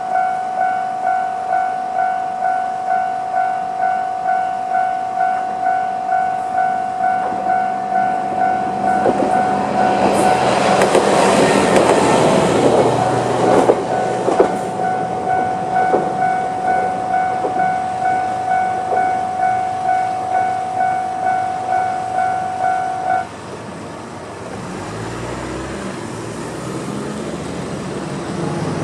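Japanese level-crossing electronic warning bell ringing in a steady, even ding about one and a half times a second. A YR-880 diesel railcar passes over the crossing around ten to fifteen seconds in, with clacks of its wheels on the rails. The bell cuts off suddenly about 23 seconds in, leaving a lower rumble.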